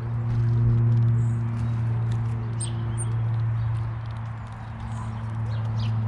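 Small garden birds giving short high chirps, with light taps from a nuthatch feeding on a seed-covered wooden bird table, over a steady low hum.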